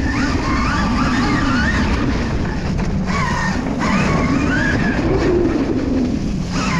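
Small off-road vehicle engine running under way, its pitch rising and falling as the throttle is worked, over a steady rough rumble.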